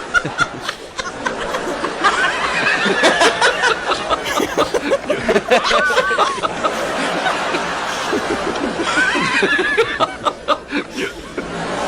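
A crowd of many people laughing together, with overlapping chuckles and giggles and scattered claps. The laughter swells about two seconds in, eases, then swells again near the end.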